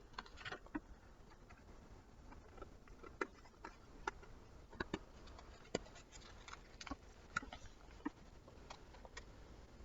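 Faint handling noise: scattered light clicks and taps from a picture book being held and shown during a pause in the reading.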